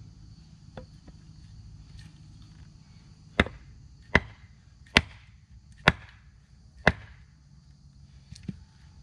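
Small hatchet chopping into firewood: five sharp strikes about a second apart, splitting kindling with a cheap hatchet that doesn't split wood well.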